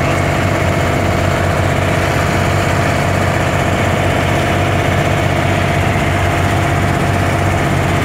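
The boat's engine running steadily while under way, heard from on board as an even drone.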